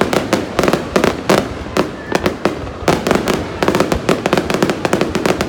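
Aerial fireworks bursting overhead in quick succession: a dense, uneven run of sharp bangs and crackles, several a second.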